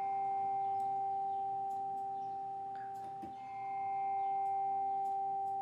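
VSL Smart Spheres 'Frozen Mallets' sampled ambient bell patch in Vienna Synchron Player, set with a long release. A sustained, bell-like chord swells in and fades slowly, then swells in again about three and a half seconds in.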